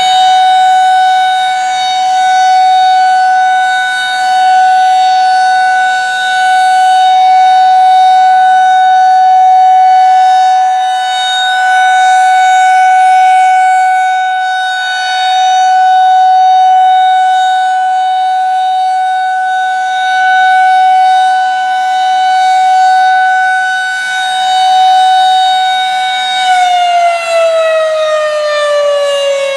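Federal Signal 2001-SRN rotating electromechanical outdoor warning siren sounding a steady alert tone. The tone swells and fades about every four seconds as the rotating head sweeps past. Near the end the siren shuts off and its pitch starts falling as it winds down.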